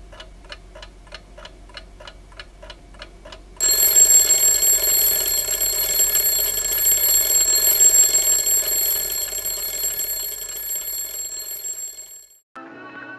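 Sound effect of a clock ticking, about three and a half ticks a second, then an alarm clock bell ringing loudly and continuously for about nine seconds before it stops near the end.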